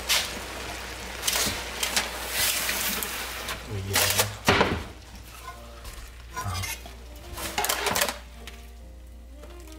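Metal utensil scraping and clinking against a pan and dishes in a string of short strokes, as the finished stir-fry is served out; it stops about eight seconds in.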